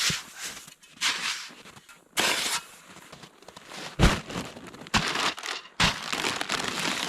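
Stiff frozen plastic crinkling and crackling as it is handled, in bursts. There are sharp knocks about four, five and six seconds in; the first of these is the loudest.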